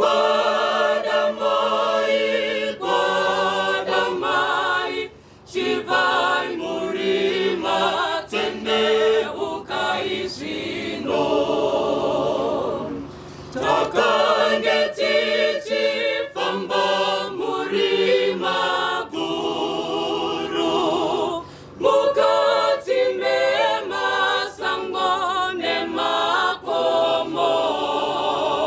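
Mixed choir of men and women singing a cappella in harmony, with brief pauses between phrases.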